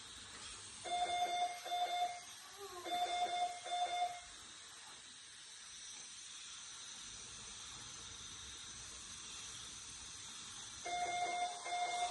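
Medical equipment alarm beeping: two pairs of steady electronic tones in the first four seconds, then the beeping starts again near the end, over a faint steady hiss.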